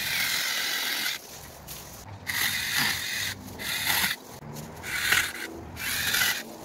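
Sainlogic 6-inch cordless mini chainsaw with a brushless motor, running in repeated short bursts of a second or two as its chain cuts through elm branches. Each burst is a steady, high whine.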